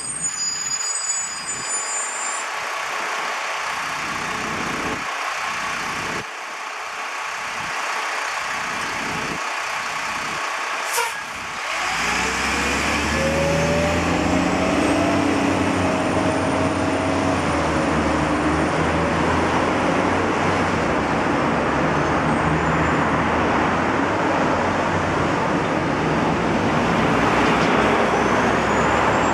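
Busy road traffic passing. About twelve seconds in, a heavy vehicle's engine close by joins in with a louder, deeper steady sound that carries on, just after a single sharp click.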